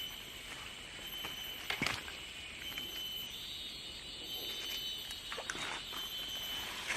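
Steady high drone of forest insects, with a second high buzzing chorus joining about three seconds in. A few short clicks and knocks sound over it.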